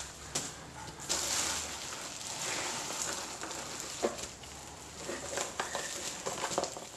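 Bubble wrap and a padded paper mailer rustling and crinkling as gloved hands pull a wrapped package out of the envelope, with small crackles and pops throughout.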